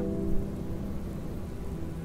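Soft drama-soundtrack background music with a few held notes, easing slightly in level.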